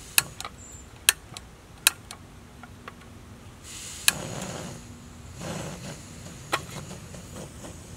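Sharp metallic clicks, about seven spread out, with a couple of short soft scraping rustles, as the fold-out pot supports and fittings of a small canister stove on a GigaPower gas canister are worked by hand.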